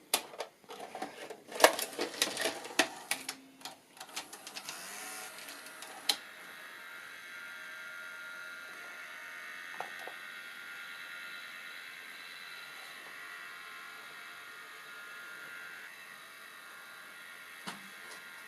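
S-VHS video recorder mechanism: a quick run of clicks and clunks for the first few seconds, then a steady motor whir with a high whine, with a single click near the middle and another near the end.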